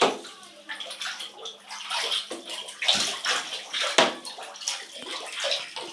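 Bath water thickened with tomato soup and spaghetti hoops sloshing and splashing as it is stirred with a wooden spoon, with sharp knocks right at the start and about four seconds in.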